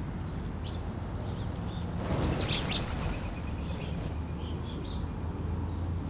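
A flock of small backyard birds chirping, with a burst of wing flutter about two seconds in as the flock flies up from the ground, over a steady low hum.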